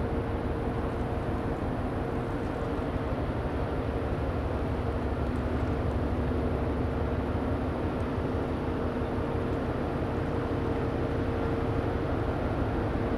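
Harbour tug's diesel engines running hard as it pulls on a towline, a continuous low rumble with a steady whine over it.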